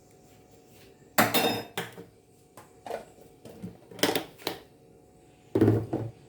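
A spoon clinking and knocking against a bowl and a seasoning container in a handful of short, sharp knocks, the loudest about a second in and near the end, as tablespoons of green seasoning are scooped into the marinade.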